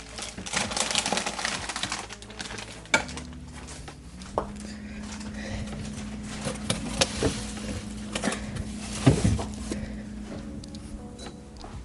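Groceries and food containers being handled and set onto fridge shelves: a run of clicks, knocks and clatter, with rustling packaging in the first couple of seconds and one louder knock about nine seconds in.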